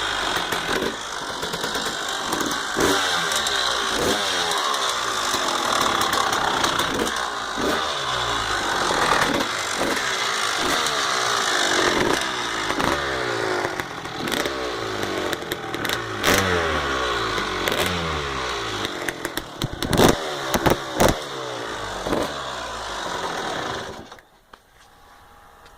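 1999 Honda CR250R single-cylinder two-stroke engine running and being revved again and again, its pitch rising and falling with each throttle blip, carrying the weird rattling noise the owner is asking about. A few loud sharp cracks come near the end, and the engine stops shortly before the close.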